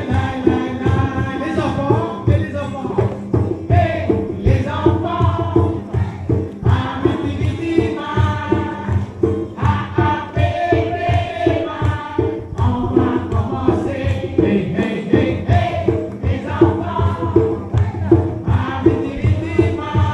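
Background music: a song with sung, choir-like vocals over a steady beat.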